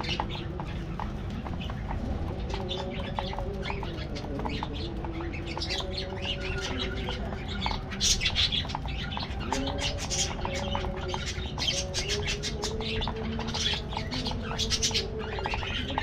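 A flock of budgerigars chirping and chattering, many quick overlapping calls with a louder busy stretch about eight seconds in.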